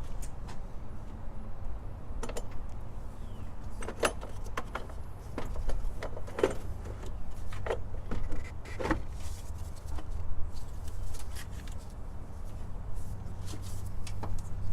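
Scattered clunks and clicks of a car battery and its cable being handled and fitted in a Mustang's engine bay, with a cluster of knocks in the middle, over a steady low rumble.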